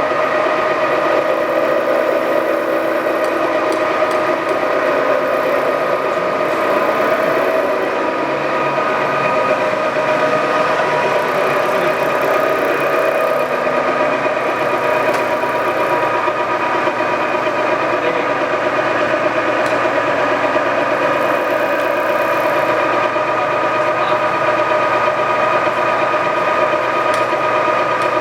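Lagun FVA-5LA geared-head vertical milling machine running under power, its gear train and spindle giving a steady whine of several fixed tones.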